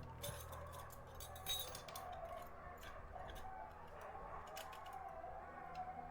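Small metal clicks and taps of screws, a screwdriver and hard-drive parts being handled during disassembly, scattered irregularly, over a steady low hum.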